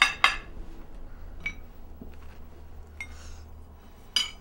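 Crockery and cutlery clinking at a table: a quick cluster of clinks at the start, a few faint taps, then one sharp ringing clink near the end.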